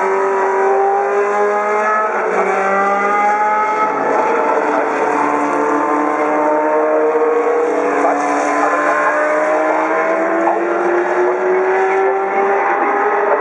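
Classic Formula 1 racing engines running hard, several at once, their pitch rising and falling as the cars accelerate and ease off.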